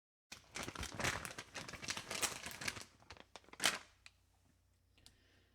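Crinkling and rustling, as of a wrapper or bag being handled, dense for the first few seconds, with one louder rustle a little later before it dies down.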